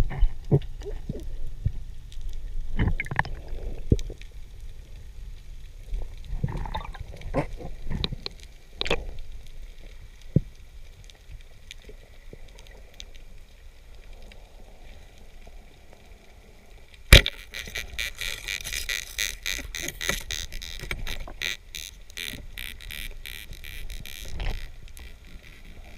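Underwater sound of a diver moving with a speargun: low water rumble with scattered knocks. About two-thirds of the way through comes one sharp, loud crack, followed by a dense crackle of fine clicks.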